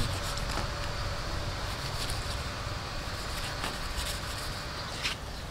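Knife slicing the hide away from a cow's head, with a few short scrapes of the blade over steady outdoor background noise.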